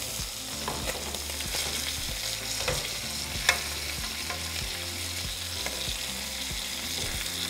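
Chicken breasts sizzling in butter and oil in a frying pan, with light clicks and scrapes of a metal fork as the pieces are flipped over; the sharpest clink comes about three and a half seconds in.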